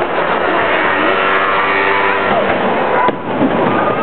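Fireworks display going off: a loud, dense din of bursts and crackle, with one sharp bang about three seconds in.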